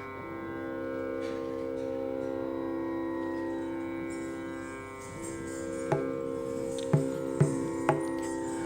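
Live Indian classical instrumental music: a steady drone of several held notes, with four sharp struck notes in the last three seconds.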